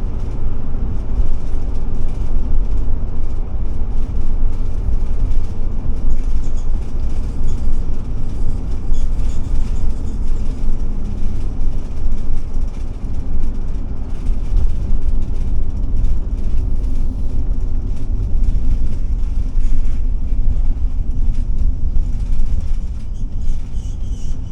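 Cab noise of a 2007 Forester Class C motorhome on a Ford E450 chassis cruising on a highway: a steady low rumble of engine, tyres and wind.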